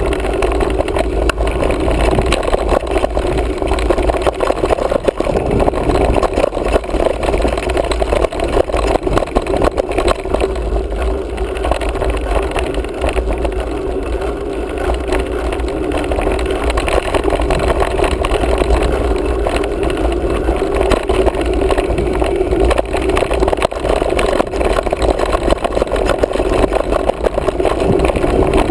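Ride noise of a mountain bike on a dirt trail, picked up by a camera riding along: a steady loud rumble of wind on the microphone and tyres rolling over dirt, with a constant fine rattle.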